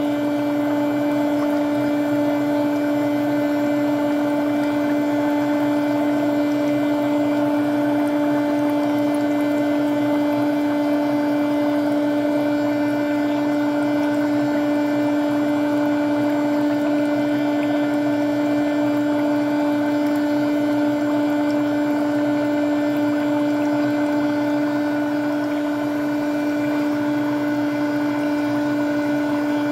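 Electric foot spa's bubble function running: a steady motor hum with air bubbling through the water.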